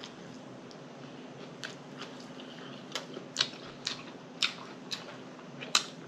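Close-miked chewing of a saucy bun-less cheeseburger: wet lip smacks and mouth clicks, short and sharp, coming about every half second from a second or so in.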